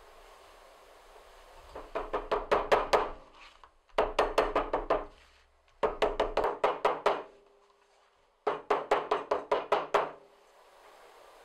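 White-headed poly mallet striking a leather passport case laid on a stone slab: four quick runs of seven to nine sharp knocks each, with short pauses between the runs.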